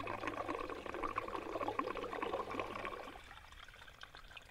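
Water being poured into a camp shower's reservoir, a steady pouring that stops about three seconds in.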